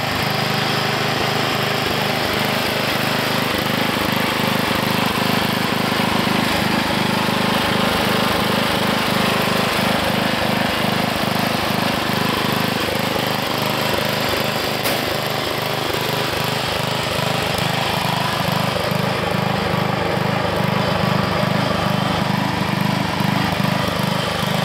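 Riding lawn tractor's Briggs & Stratton engine running steadily, with an even pulsing beat and no change in speed.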